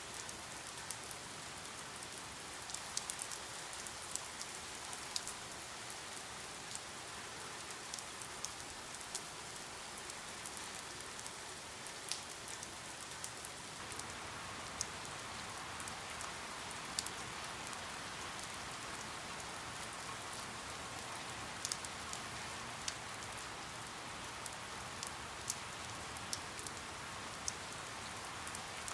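Steady rain falling, with a constant hiss and many separate drops ticking sharply on a hard surface.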